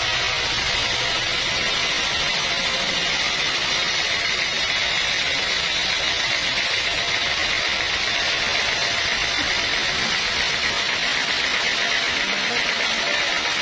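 Sawmill saw cutting lengthwise through a long teak log, a steady high-pitched rasping noise at an even level.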